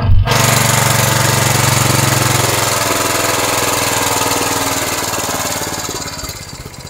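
Lawn mower engine running loud and rough while its carburetor adjustment screw is turned, detuned on purpose to run rich and ragged. A loud thump right at the start, then the engine runs harsh and steady before easing down to a quieter, lumpier idle near the end.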